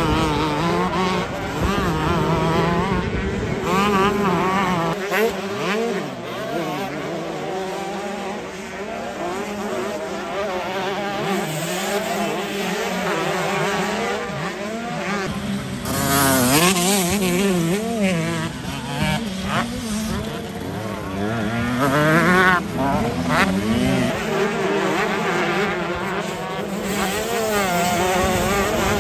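125 cc two-stroke motocross bikes racing, their engines revving up and down in quick wavering pitch as the riders work the throttle. A bike passes close and comes through loudest about 16 s in and again about 22 s in.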